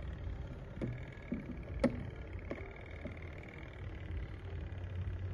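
Air fryer running with a steady low hum and a faint high whine, with a few sharp clicks as its controls are set. The loudest click comes about two seconds in.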